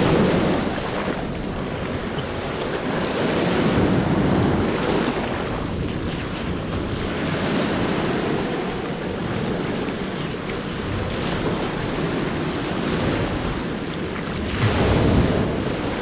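Small sea waves breaking and washing up over a pebbly shore, surging in and out every few seconds, with the biggest wash near the end. Wind buffets the microphone.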